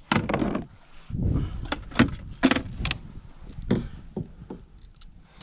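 Irregular clicks, knocks and light clattering of fishing gear and fittings handled aboard a plastic kayak, with a few bursts of low rumble in the first couple of seconds.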